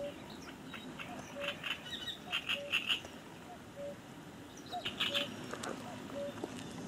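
Frogs calling from the reeds: a short low note repeated evenly about every two-thirds of a second, with quick bursts of higher rattling calls about two seconds and five seconds in.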